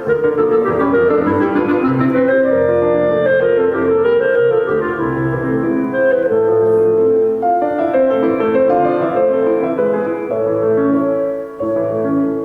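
Classical music with piano and a woodwind, played through the Accuphase E270 integrated amplifier and Sonus Faber Venere 3.0 loudspeakers as a listening test, with a brief dip in loudness near the end.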